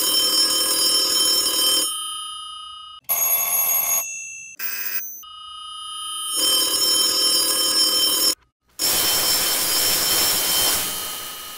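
Old rotary telephone's bell ringing, followed by several edited versions of the same ring. One rings loud at first and then fades. Two short snippets follow. One swells up and then cuts off. Near the end comes a harsh, noisy version that fades away.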